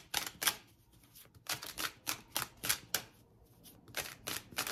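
Tarot cards being shuffled by hand: quick, crisp card snaps in three short runs with brief pauses between.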